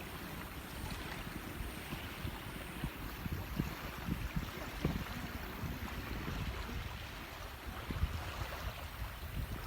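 Wind buffeting the microphone outdoors: an irregular low rumble over a steady hiss.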